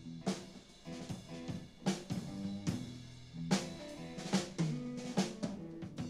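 Live rock band drum kit playing a slow beat of kick, snare and cymbal hits, with held low instrument notes sounding underneath between sung lines.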